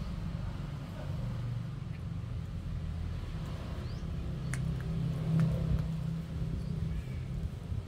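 Low, steady engine rumble with an uneven hum, with a few faint clicks about halfway through.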